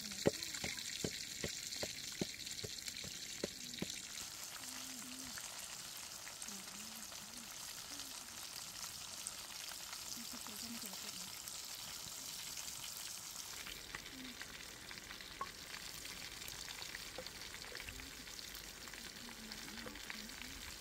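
A wooden pestle pounds in a mortar about twice a second for the first four seconds. After that, a large slab of pork sizzles steadily as it fries in hot oil in a wok.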